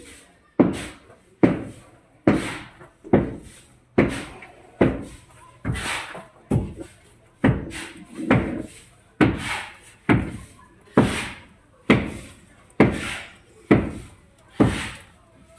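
Hammer striking wood in a steady rhythm, a little more than one blow a second, each with a short ringing tail.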